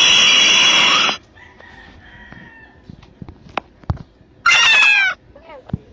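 A loud, noisy sound cuts off suddenly about a second in, followed by a few light taps and clicks, then one short cat meow, falling in pitch, near the end.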